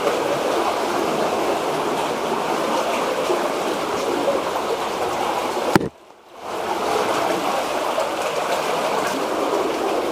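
Water of a cave stream running steadily with an even rushing sound. About six seconds in, a sharp click and the sound cuts out abruptly for about half a second, then the rushing resumes.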